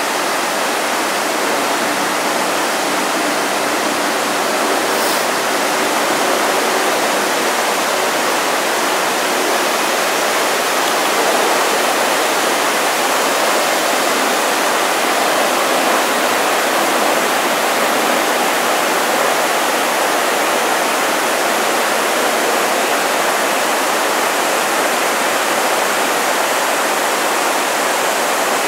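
The 9/11 Memorial reflecting-pool waterfall: a steady, even rush of water sheeting down the pool walls and splashing into the basin below.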